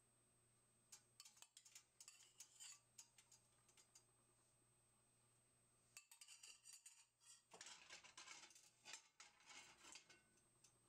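Faint clinks and scrapes of a metal teaspoon against a nonstick frying pan on an electric coil stove as oil is added and the pan is tilted to spread it. The sounds come in two bouts of irregular light clicks, the second starting about six seconds in.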